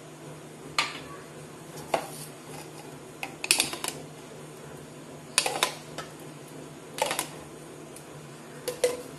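Spoon clinking and knocking against a stainless steel mixing bowl and ingredient containers while ingredients are added. There are about seven sharp taps, some in quick clusters, over a faint steady hum.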